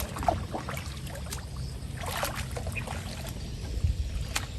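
Water splashing and sloshing in short irregular bursts, over a steady low rumble.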